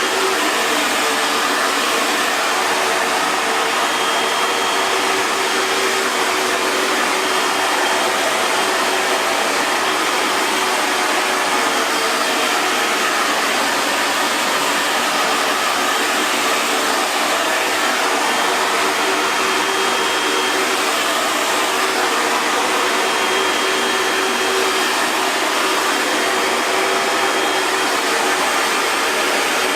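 Hair dryer running steadily: an even rush of blown air over the motor's faint steady hum, with no change in speed.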